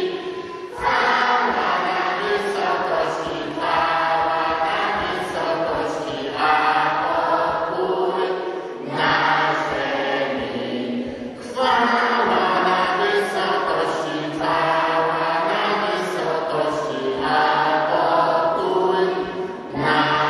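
A group of voices singing a Polish Christmas carol together, in phrases of about two to three seconds with short breaks between them.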